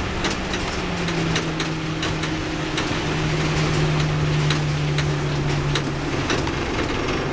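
Street traffic with a vehicle engine humming at a steady low pitch that stops about six seconds in, over a background of road noise and scattered sharp clicks and knocks.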